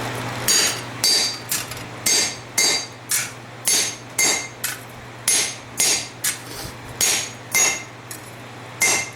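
Hammer striking a blacksmith's flatter set on hot steel over the anvil, a steady rhythm of about two ringing metallic blows a second, starting about half a second in; the flatter is smoothing hammer marks out of a forged knife handle.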